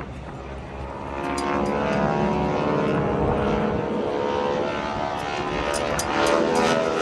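Propeller airplane flying past, its engine growing louder from about a second in, with the pitch dropping toward the end as it passes.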